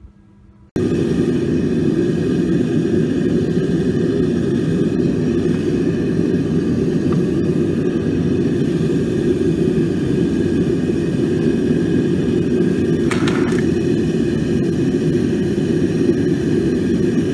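Steady low roar of a metal-melting furnace's burner running, cutting in suddenly about a second in.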